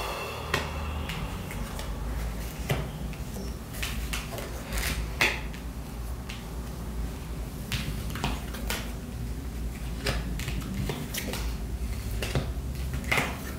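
Scattered light clicks and taps of small objects being handled on a table, a few of them sharper, over a steady low hum.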